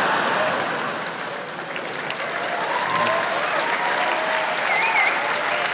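Live audience applauding steadily after a punchline, with a few voices calling out over the clapping.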